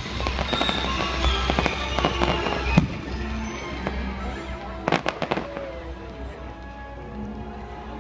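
Aerial fireworks bursting: a rapid run of crackles through the first three seconds, then a few separate louder bangs about five seconds in, with music playing alongside.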